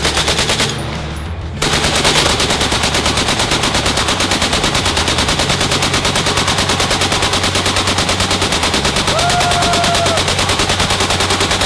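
M1919 Browning belt-fed machine gun on a tripod firing full-auto: a short burst, a pause of about a second, then one long unbroken burst of rapid, evenly spaced shots.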